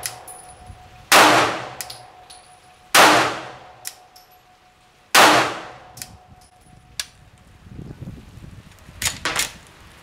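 Three shots from a Glock 19 9mm pistol firing hand-loaded rounds, about two seconds apart, each followed by a faint ringing tone. A few lighter sharp clicks come near the end.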